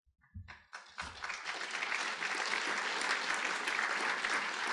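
A large audience applauding. The clapping swells in about a second after a couple of low knocks and then holds steady.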